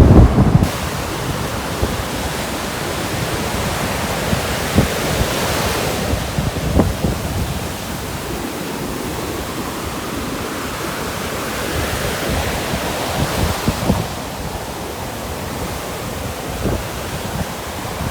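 Ocean surf washing in under strong wind, a steady rushing hiss that swells now and then, with wind buffeting the microphone in low rumbles.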